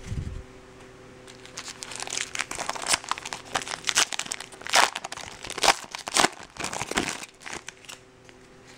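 Foil wrapper of a 2013 Bowman baseball card pack being torn open and crinkled by hand, in a run of sharp crackles over several seconds, after a soft bump at the very start.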